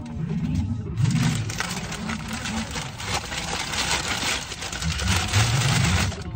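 A paper takeaway bag is crinkled and rustled as hands rummage inside it. The dense crackling starts about a second in and runs until near the end, with a low, wavering hum underneath.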